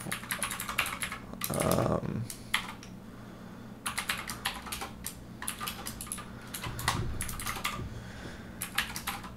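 Typing on a computer keyboard: quick runs of keystrokes, with a short pause about three seconds in.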